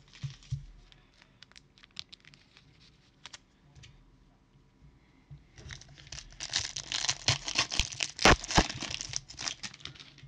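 Light clicks and taps of trading cards being handled, then, about five seconds in, a Prizm football hobby pack's wrapper is torn open and crinkled with sharp crackles.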